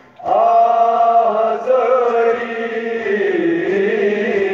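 A boy's voice chanting a Kashmiri noha, the Shia lament for Karbala, drawing out one long wavering note unaccompanied between the recited lines.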